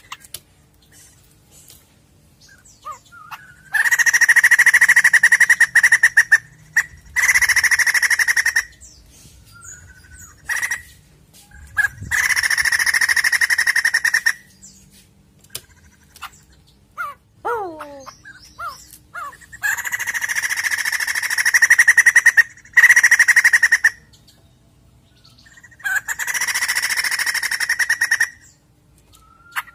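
White-crested laughingthrush giving its loud song in bursts of fast, rattling calls of one to three seconds each, about six bouts in all. A few short whistled notes fall in the gaps between them.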